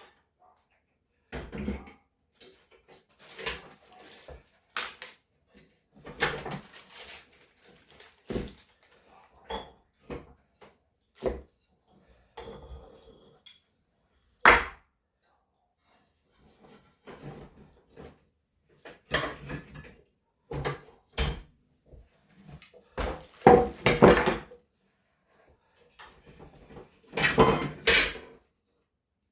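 Loose metal car parts and tools clinking, clattering and knocking as they are picked up, set down and sorted, in irregular bursts with short pauses; the loudest clatters come about a second and a half in, around fourteen seconds in, and in a cluster near the end.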